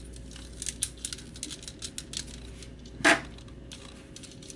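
Plastic parts of a Transformers Astrotrain action figure clicking and rattling as it is handled, with one louder clack about three seconds in.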